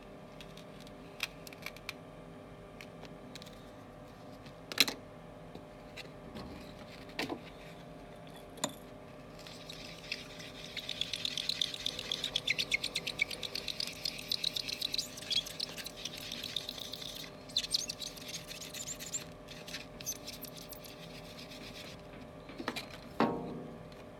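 A melamine sponge, wet with acetone, scrubbed back and forth over the bare glass of an iPhone LCD panel to clear leftover polariser glue, giving a rapid squeaky rubbing for several seconds in the middle. Before it come scattered small clicks and taps of tools on the panel and a steel bench, and there is a louder knock near the end.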